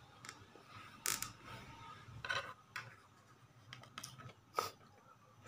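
Eating sounds from rice dressed with soy sauce and cooking oil, eaten by hand: a few short, sharp smacks and clicks of chewing and of fingers working the oily rice on a plate, the loudest about a second in, with faint room noise between.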